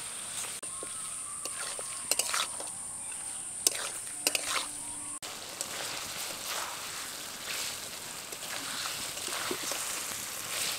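Chicken pieces sizzling in masala and oil in a metal kadai as they are stirred with a metal spatula, with scattered scrapes and clinks of the spatula against the pan.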